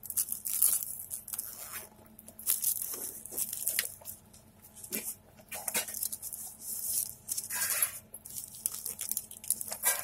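Irregular bursts of rustling and crackling handling noise, strongest in the highs.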